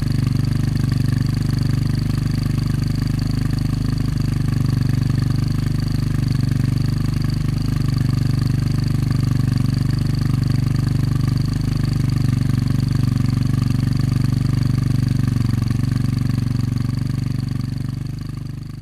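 Yamaha XT660Z's single-cylinder four-stroke engine held steady at about 3000 rpm, heard through a Dominator aftermarket exhaust fitted with its medium dB killer baffle. The steady exhaust note fades away near the end.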